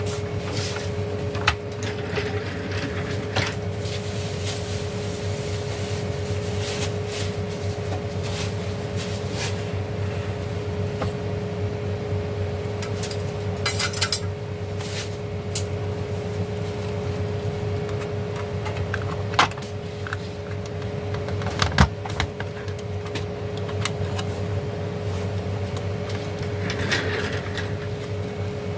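Small clicks, taps and knocks of plastic casing and parts being handled while an emergency light's battery is replaced, over a steady mechanical hum.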